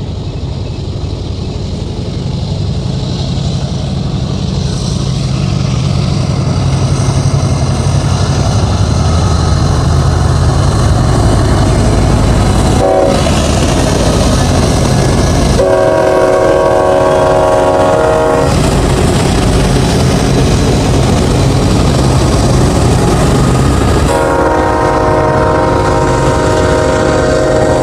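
Union Pacific diesel locomotives working hard upgrade, their engines droning and growing louder over the first several seconds. The horn gives a short toot about halfway in, then a long blast a few seconds later and another near the end.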